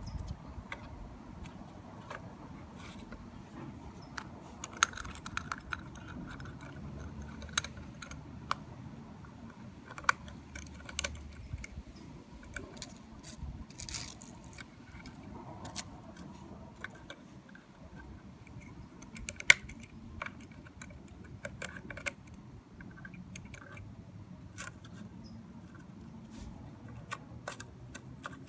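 Irregular light clicks and rattles of small toy parts handled by hand: a First Gear diecast rear-loader garbage truck model with its miniature cart and crate being loaded and tipped.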